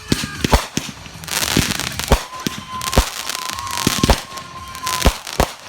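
Consumer fireworks going off: a string of sharp bangs at uneven intervals, bursts of hissing crackle, and a steady high whistle lasting about three seconds through the middle.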